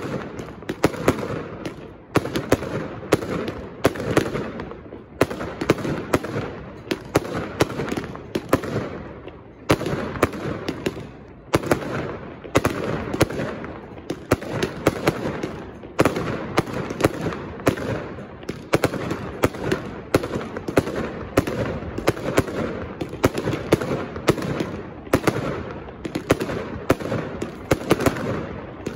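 Aerial fireworks display: shells bursting overhead in a dense, unbroken run of sharp bangs, several a second, with crackling noise between them.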